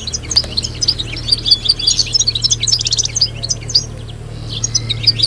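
Several European goldfinches twittering together in a dense, fast chatter of high chirps and trills, which thins briefly near the end. A steady low hum runs underneath.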